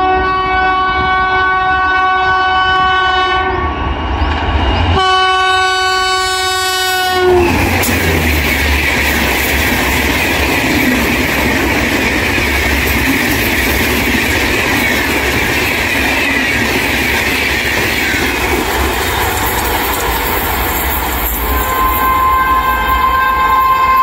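Shatabdi Express train's horn sounding in two long chords, the second dropping in pitch as it passes. Then comes the steady rush and clatter of the coaches going by at speed.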